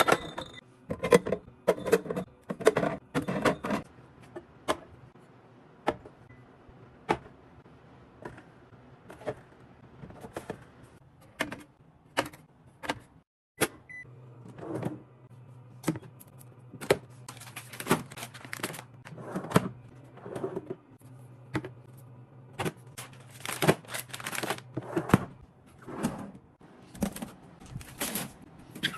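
Many short knocks and clicks of small objects being handled and set down. A low steady hum starts about halfway through.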